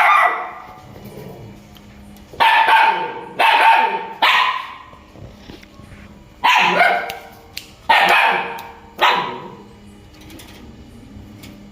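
A dog barking loudly, about seven barks: one at the start, then three in quick succession, then three more, the last few seconds without barks.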